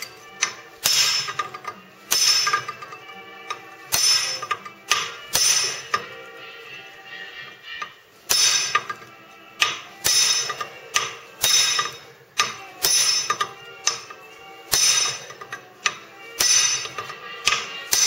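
A hammer striking a brass drift to drive the countershaft out of a 1948 Chevrolet three-speed transmission. The strikes are sharp metal clangs, irregular and about one a second, each ringing on briefly in the transmission case.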